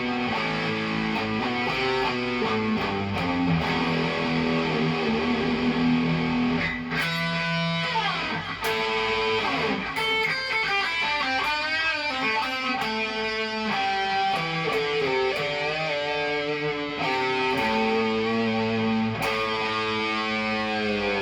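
Cort Viva electric guitar being played: melodic single notes and chords that ring on, with sliding pitch about eight seconds in and again near the end.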